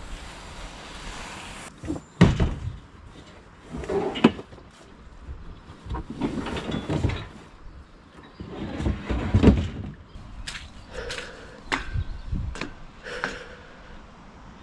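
Wind on the microphone at first, then a run of irregular knocks, bumps and scrapes as a kayak hull is handled and stacked onto a rack against other kayaks. The loudest bumps come about two, four and nine and a half seconds in.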